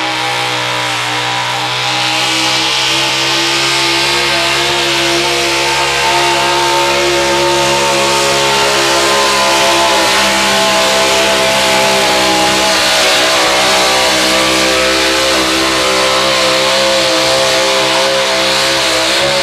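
Engine of a modified Chevy pickup pulling truck running flat out under load as it drags a weight-transfer sled, held at high revs for the whole pull with its pitch nearly steady.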